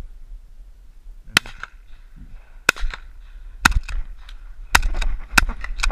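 Shotguns firing at passing doves: about six sharp shots spread over several seconds, two of them close together near the middle.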